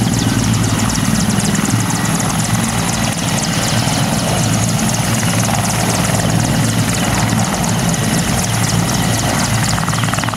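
Mi-24 attack helicopter running close by, its main rotor beating rapidly and evenly over the steady high whine of its twin turboshaft engines.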